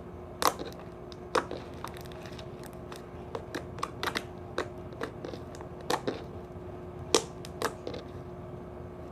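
Glossy, bubbly slime being squeezed and stretched in the hands, making irregular sharp clicks and pops, about a dozen scattered through the stretch.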